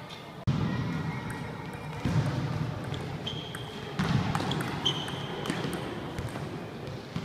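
Table tennis ball clicking off paddles and table during a rally, with sneakers squeaking briefly on the sports-hall floor a couple of times, all echoing in the large hall.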